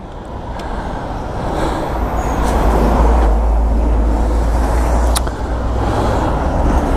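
A car passing close by on a wet road, its tyres hissing on the wet tarmac, swelling as it approaches over a low steady rumble. A single sharp click about five seconds in.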